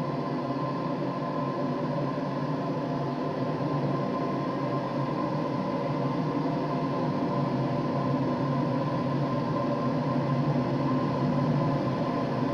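Many small insects buzzing together in a dense, steady drone of overlapping wing hums.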